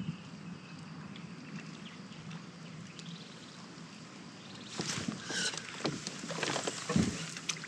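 Small sounds aboard a fishing kayak: a steady low hum, then from about five seconds in a run of clicks and rattles from gear being handled, with a single knock near the end.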